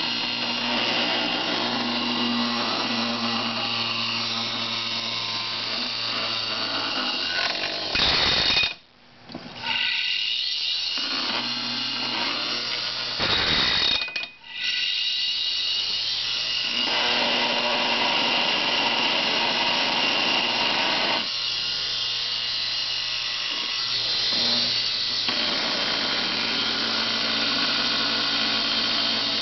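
An opened hard drive's spindle motor spins its exposed platter at speed, giving a loud, steady, high-pitched drill-like whir. Twice, about a third of the way in and again about halfway, the sound jumps briefly louder, then drops away sharply for a second or so before returning.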